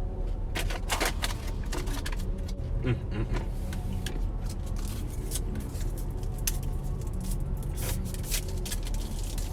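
Irregular crinkling and rustling of packaging being handled, over the steady low rumble of a car cabin.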